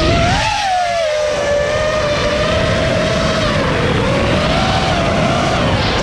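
FPV drone's electric motors and propellers whining, the pitch wavering up and down with the throttle, over a rush of prop noise. The pitch climbs just after the start, sags about four seconds in, then drops and climbs again near the end.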